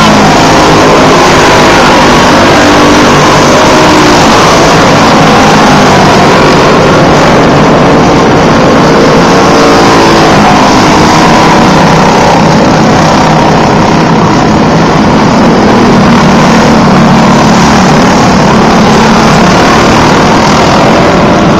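Several small dirt-oval champ kart engines racing together, loud and continuous, their pitches rising and falling as the karts accelerate, lift for the turns and pass.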